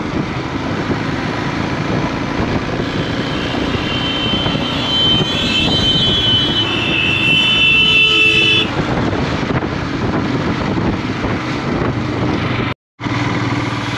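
Riding a Royal Enfield Himalayan, its single-cylinder engine running under steady wind noise, while a vehicle horn sounds for about five seconds in the middle and stops abruptly. The sound cuts out for a moment near the end.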